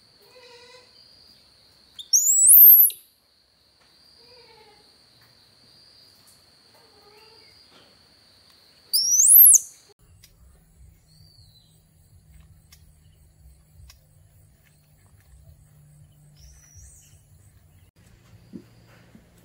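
Two loud, quick whistles, each sweeping sharply upward in pitch, about seven seconds apart, over a steady high-pitched insect drone typical of crickets. The drone stops about ten seconds in and a faint low hum takes over.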